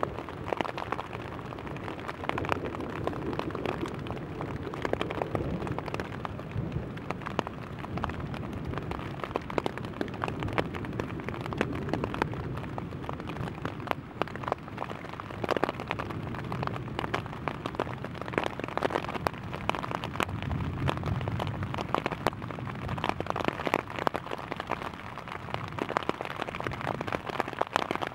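Rain pattering on a rain fly just overhead, heard from underneath: a dense patter of individual drop hits on the fabric. A low rumble swells and fades a few times beneath the patter.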